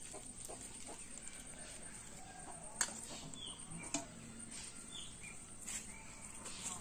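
Birds giving short scattered chirps, with two sharp clicks about three and four seconds in.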